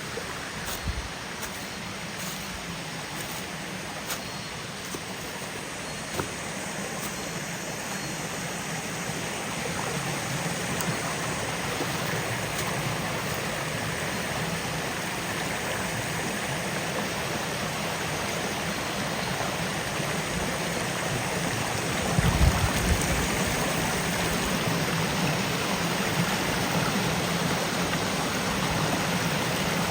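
Steady rush of flowing water from a mountain stream, growing louder about a third of the way in, with a few faint clicks and a brief low thump about two-thirds through.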